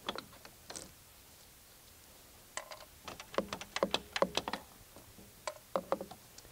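Light metallic clicking and clinking of a socket wrench undoing the 10 mm bolts on a thermostat housing: a quick irregular cluster of clicks in the middle, a few more near the end.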